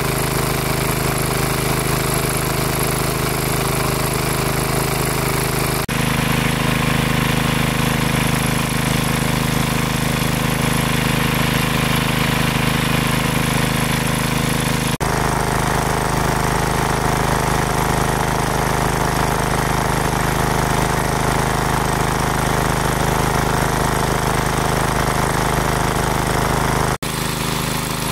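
Small engine-driven water pump running steadily as it pumps water out of a lake, with a steady engine drone. The sound changes abruptly about six seconds in, around the middle and near the end.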